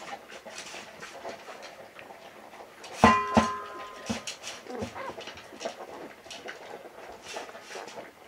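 A litter of young vizsla puppies squirming in a whelping box: small squeaks, snuffling and rustling. About three seconds in, a sharp knock with a brief ringing, then a second hit, is the loudest sound.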